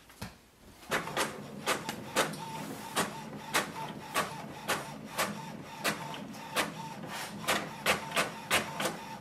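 HP OfficeJet Pro 8139e inkjet printer printing a page: a steady mechanical whir with regular clicks about twice a second, starting about a second in.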